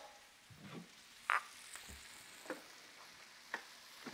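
Thick steaks frying faintly in a pan, propped on their fat edge so the fat renders, with a few short clicks and knocks of kitchenware being handled, the sharpest about a second in.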